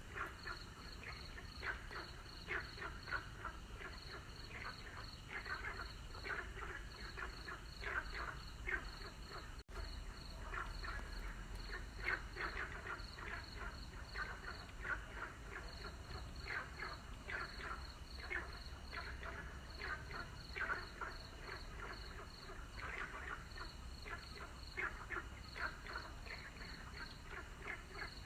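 A chorus of many frogs calling over one another in rapid pulsed croaks. A thinner, higher peeping runs above it at about three notes a second, in runs with short gaps. The sound cuts out for an instant about ten seconds in.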